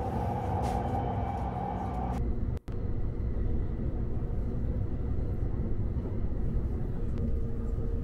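Cabin noise of a Saphir Odoriko E261-series electric express train under way: a steady low rumble of the wheels and running gear. The sound drops out briefly about two and a half seconds in.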